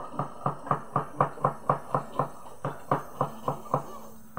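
A quick run of hollow knocks on a hard surface, about four a second, pausing briefly about halfway through and stopping shortly before the end.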